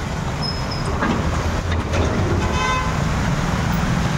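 Road traffic driving through floodwater: engines running and tyres churning the water, with one short vehicle horn toot about two and a half seconds in.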